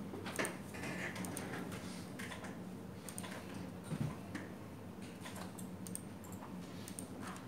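Computer keyboard typing: irregular, scattered key clicks over a steady low hum.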